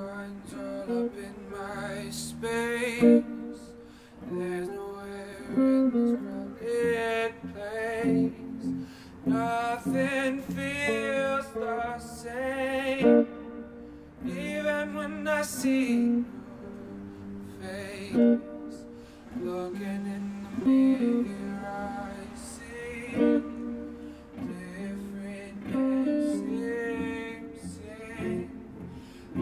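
A man singing with vibrato while playing an electric guitar through a small amplifier, a live solo performance of a song.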